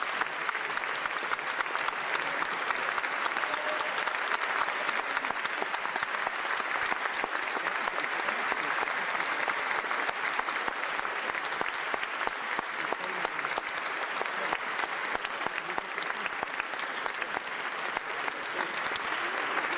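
Concert audience applauding: many hands clapping at once in a dense, steady ovation for a soloist, swelling a little near the end.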